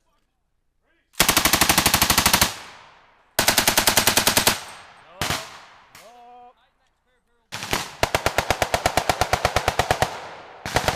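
Belt-fed machine gun firing in bursts of rapid shots: two bursts of about a second each, a single shot, then after a short pause a longer burst of about three seconds, with another burst starting right at the end.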